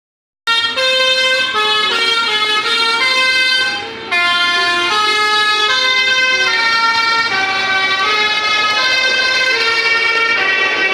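Bus's multi-tone musical air horn playing a quick tune of stepped notes, several notes a second, with a brief dip in level about four seconds in.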